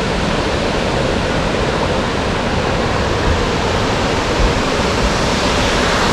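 Large waterfall in full flow: a loud, steady rush of falling water.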